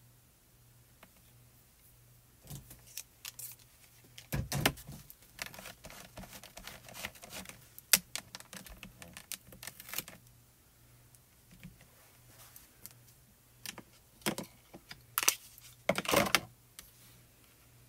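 Scattered plastic clicks and taps from clear photopolymer stamps and a stamping platform being handled and pressed during rubber stamping, in two bursts: one a few seconds in lasting several seconds, and a shorter one near the end.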